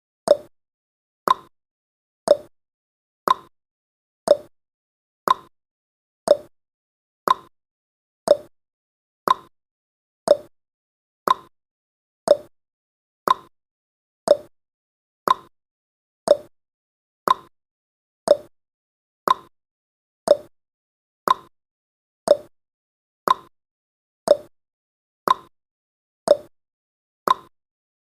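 Countdown timer tick sound effect: a short, identical click once every second, marking off the seconds.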